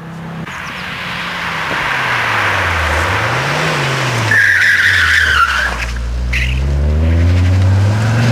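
Ford Focus RS500's turbocharged five-cylinder engine under hard driving through a hairpin. The revs rise and fall before the bend, the tyres squeal for about a second about halfway through, and then the engine pulls steadily higher as the car accelerates out.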